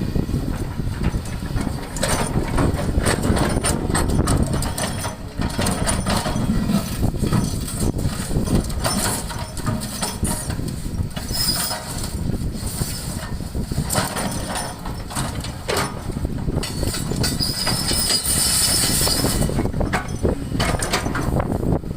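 Excavator's diesel engine running under load while stones knock and clatter against the bucket and each other. A high-pitched squeal comes twice, near the middle and again near the end.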